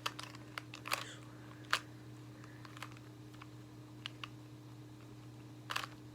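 Plastic clicks of a Square-1 puzzle as its layers are turned and its halves slashed, about seven separate clicks spread over several seconds, the sharpest a little under two seconds in and a short rattle near the end, over a faint steady hum.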